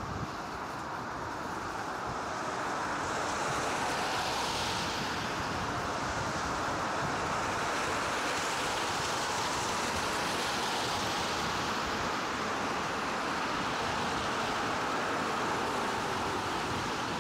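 Steady rushing noise of a bicycle ridden at about 24 km/h on a snow-covered path: wind on the camera microphone mixed with tyre noise, growing louder about three seconds in.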